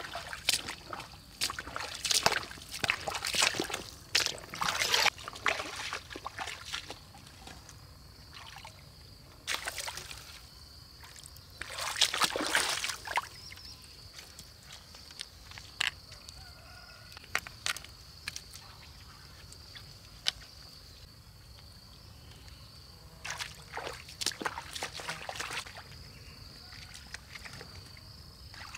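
Rubber boots wading through shallow muddy water, sloshing and splashing in several bouts as a hand reaches in to pick snails off the bottom. A steady high thin tone runs underneath.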